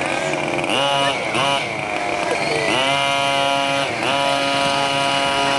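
Radio-controlled buggy revving: quick blips up and down in pitch about a second in, then held at a steady high pitch for about a second, twice over.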